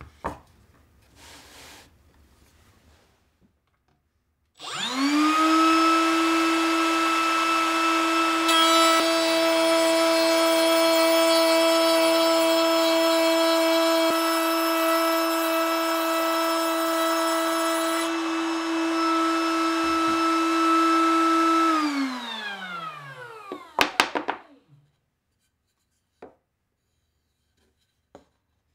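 Wood trimmer (compact router) mounted under a trimmer table switched on, whining as it spins up to speed, then cutting along the edge of a wooden board for about ten seconds. It is then switched off and winds down with a falling pitch, followed by a click or two.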